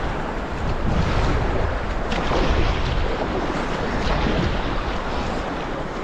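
River current rushing and splashing around an inflatable packraft, heard from on board at water level, with wind buffeting the microphone.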